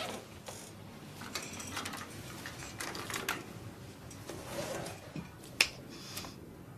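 A scattering of light clicks and taps, with one sharper click about five and a half seconds in.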